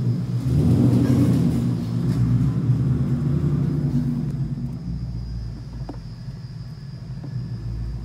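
Ford S550 Mustang moving slowly, a low engine and road rumble heard from inside the cabin that eases off in the second half.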